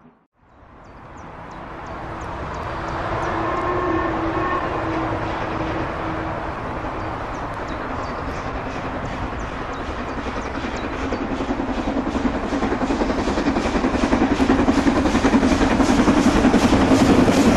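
LMS Princess Coronation Class steam locomotive Duchess of Sutherland, a four-cylinder Pacific, approaching under steam. Its exhaust beats come quickly and grow steadily louder as it nears. A distant whistle sounds for a few seconds early on.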